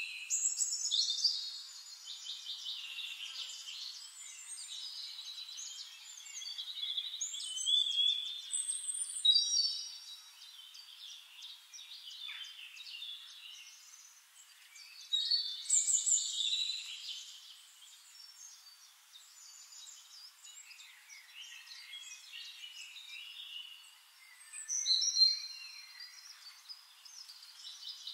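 Several songbirds singing in a forest, their high-pitched whistled and trilled phrases overlapping. The song swells every several seconds.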